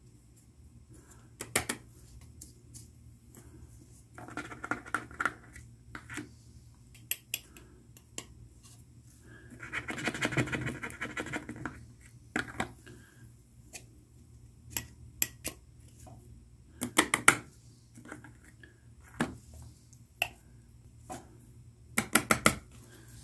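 A metal spoon scraping inside a tin of baking soda and clinking against the tin and a plastic funnel, as the powder is scooped and spooned into a car battery's cells. There are two longer scrapes, about four and ten seconds in, with sharp clinks scattered between them.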